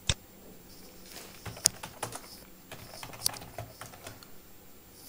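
Typing on a computer keyboard: irregular key clicks, a few louder than the rest.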